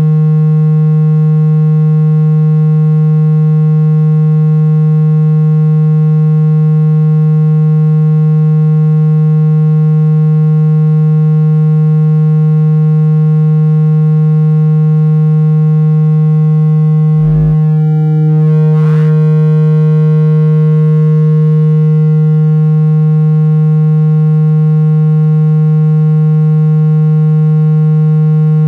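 Phone speaker-cleaning tone: a loud, steady, low buzzing tone held at one pitch with many overtones, played to shake water and dust out of a phone's speaker. A brief glitch with a couple of clicks about seventeen seconds in, after which the tone carries on unchanged.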